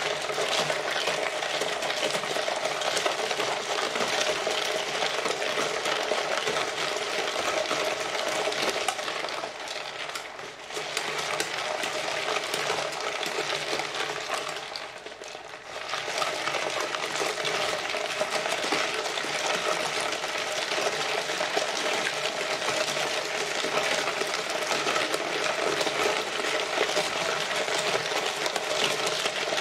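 Ice-and-salt nieve freezer churning: the metal canister turning in crushed ice and salt, a steady grinding rattle that dips briefly twice.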